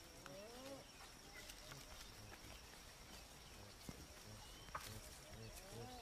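Faint animal calls in near quiet: a low wavering call near the start, then a run of short repeated calls, about three or four a second, near the end, with a couple of sharp ticks in between.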